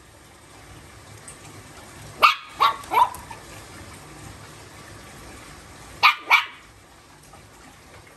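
Shih Tzu puppy barking in short high yaps: three quick barks about two seconds in, then two more about six seconds in.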